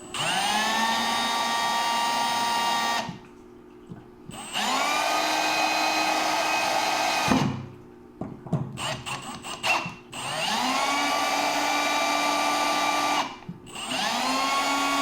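Power drill driving the valve recore tool in four runs of about three seconds each, each spinning up with a rising whine and then running steadily, with clattering clicks between the second and third runs.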